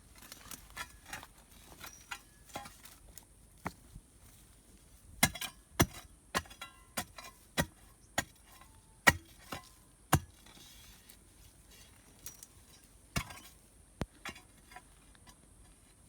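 A steady high insect buzz runs under irregular sharp clicks and knocks, roughly one every second or so, a few of them louder.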